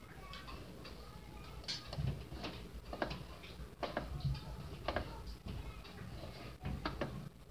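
Irregular short clicks and taps over a low rumble, among them a computer mouse clicking to select an answer on screen.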